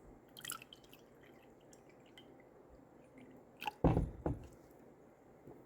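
Faint dripping and handling of water in a small cooking pot, with one dull knock about four seconds in.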